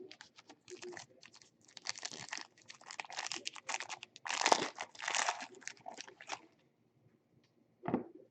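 Plastic wrapping crinkling and tearing in irregular rustles as card packaging is opened and handled, loudest about halfway through, with one short knock near the end.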